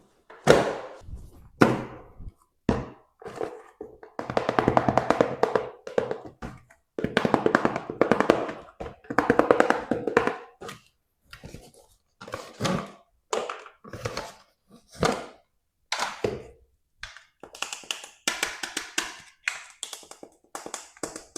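Hands handling and opening plastic toy packaging: a string of plastic knocks, taps and clacks, with two longer stretches of rattling.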